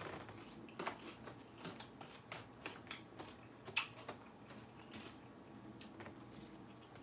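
A person chewing crisp lettuce: faint, irregular crunches and clicks, several a second, with one sharper crunch a little before the midpoint.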